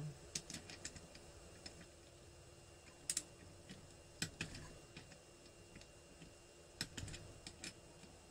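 Scattered sharp metallic clicks from a ratchet torque wrench working on the cylinder head nuts, with a louder double click about three seconds in and a few more near the end.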